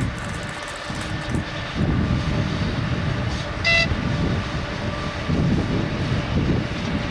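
A freight train of open wagons behind a pair of class 363.5 electric locomotives passing by, with a steady rumble of wheels on the rails. A brief high tone sounds about halfway through.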